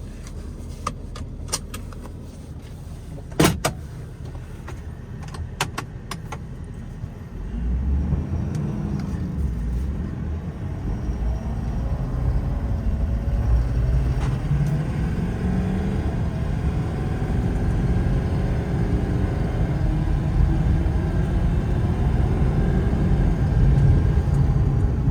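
Ford 6.7-litre Power Stroke V8 diesel of a 2017 F-550 heard from inside the cab: several sharp clicks and one louder knock over a low idle in the first seven seconds, then the engine's low rumble rises about seven seconds in and grows steadily louder as the truck pulls away.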